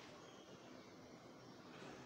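Near silence: faint room hiss.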